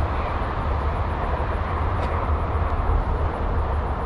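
Steady rumble of wind buffeting the microphone, mixed with the wash of highway traffic.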